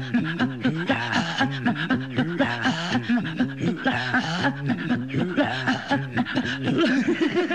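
Rhythmic vocal music: a voice in quick, evenly repeating pulsing syllables, several a second, over a steady low line. Near the end it settles into a held note.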